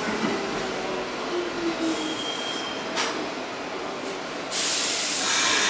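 Pullman-Standard R46 subway train rolling slowly to a stop in the station, its wheels giving faint squeals, with a click about three seconds in. About four and a half seconds in, a loud hiss of air vents from the brakes as the train stops.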